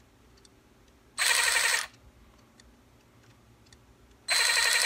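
Harbor Freight Earthquake XT 12-volt cordless 3/8-inch ratchet spinning up in two short bursts with a high whir, about three seconds apart, with faint clicks from the trigger in between. The motor starts only once the variable-speed trigger is pushed past its dead spot.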